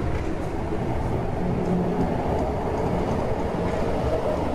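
MTR Island Line M-Train (set A107-A154) moving along the platform, a steady rumble with a faint low hum.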